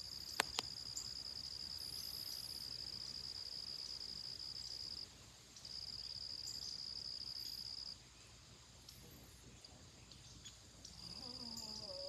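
Insects trilling in a steady high-pitched drone that stops briefly about five seconds in and again for about three seconds before resuming near the end. Two sharp clicks about half a second in, and a faint wavering call near the end.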